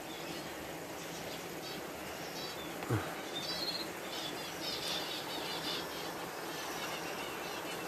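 Small aviary birds chirping in rapid, repeated high notes over the steady rush of the aviary's running exhaust fans. A single short downward-sliding sound stands out about three seconds in.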